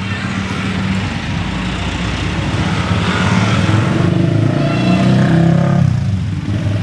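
Motorcycles passing close by on a street, the engine noise building to its loudest about five seconds in, then dropping away.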